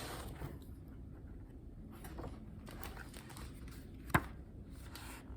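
Faint rustling of picture-book paper pages being handled and turned; the pages are sticking together. One sharp click or tap about four seconds in.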